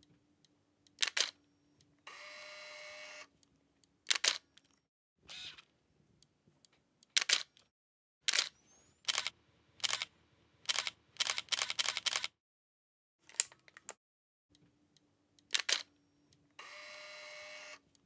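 Camera shutters of different cameras clicking: single shutter releases, with a rapid run of clicks like burst shooting about two-thirds of the way through. Twice, about two seconds in and near the end, there is a steady whir lasting about a second.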